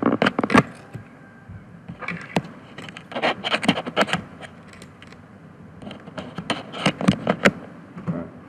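Computer mouse being handled on the desk: four bursts of sharp clicking and scraping while the page is scrolled.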